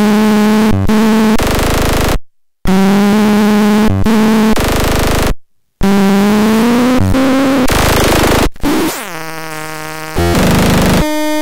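Synthesized engine sound imitating a GM LS3 V8: held, slightly rising revs that cut off abruptly into silence twice, then a lower, steady idle-like tone near the end.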